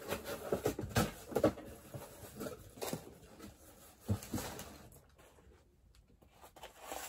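Cardboard boxes and tissue paper being handled: scattered rustles, taps and knocks, with a dull thump about four seconds in.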